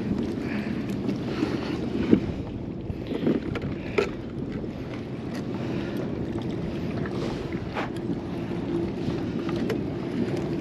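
Wind buffeting the microphone over water lapping against a kayak hull, with a few short sharp clicks and knocks from fishing gear being handled on the kayak.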